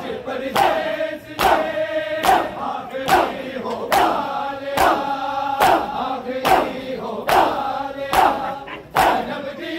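Mourners doing matam, hands striking their chests together in a steady rhythm of sharp slaps a little more than once a second, while men's voices chant a lament between the strokes.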